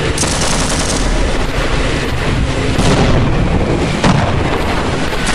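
Battle gunfire: a burst of rapid machine-gun fire near the start and another shot about three seconds in, over a steady low rumble.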